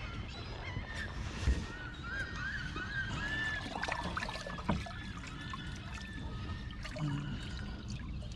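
Birds calling, a quick string of short arched calls bunched a couple of seconds in, over a steady low rumble of wind and water.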